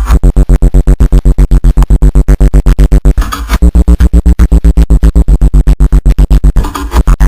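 Bass-heavy electronic music played very loud through a car audio system with two Rockford Fosgate 15-inch subwoofers. Fast, even bass pulses come about nine a second, with two short breaks: one a little after three seconds and one near the end.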